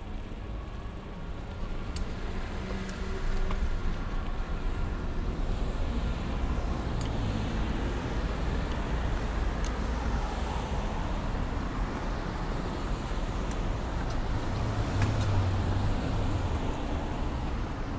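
Street traffic: the low engine and tyre rumble of passing road vehicles, swelling about three seconds in and then holding steady, with a few faint clicks.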